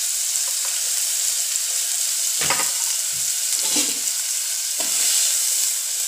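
Chopped onion sizzling in hot oil in an aluminium pot, a steady frying hiss. A metal spoon stirring it scrapes and knocks against the pot a few times about midway through.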